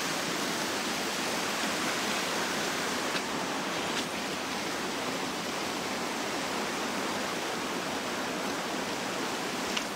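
Steady rushing of water pouring into a stream at an outfall, with a few faint clicks.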